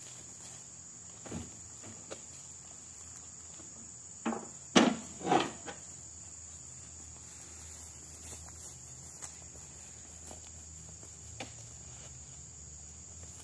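Heavy oil palm fruit bunches thudding onto a tractor trailer load: a single knock early on, then three thuds in quick succession about four to five and a half seconds in, the middle one loudest. A steady high drone of crickets runs underneath.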